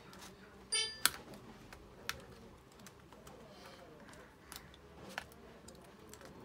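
Tweezers prying at the plastic scissor mechanism under a removed laptop key, making scattered small plastic clicks and ticks against the keyboard.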